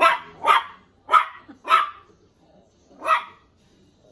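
Cairn terrier puppy barking at its own reflection in a mirror: four short barks about half a second apart, a pause, then one more.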